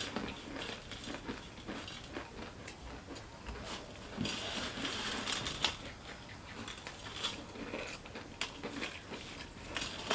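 Crunchy namkeen snacks being chewed: irregular crunching and small crackles, denser for a couple of seconds near the middle.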